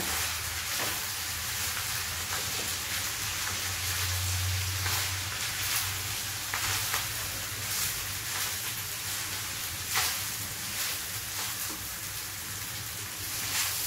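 Fried rice with vegetables sizzling in a hot kadai as it is stirred and tossed with a spatula, with occasional short clicks of the spatula against the pan.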